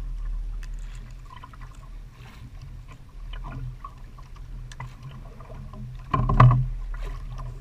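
Engine of a small Balinese outrigger fishing boat running low and steady, with light scattered clicks and a brief louder burst about six seconds in.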